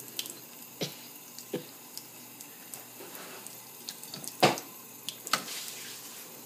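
Faucet running in a thin stream into a sink, with a few short splashes and clicks as a cat drinks from it. The sharpest splash comes about four and a half seconds in.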